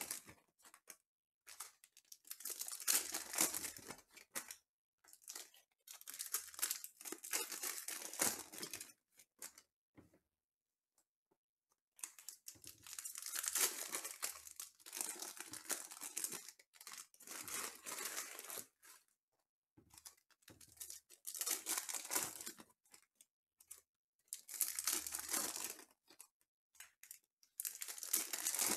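Trading-card pack wrappers, 2020 Panini Mosaic football packs, being torn open and crinkled by hand, in about ten short bouts of tearing and crinkling with brief pauses between and a quiet gap of about two seconds near the middle.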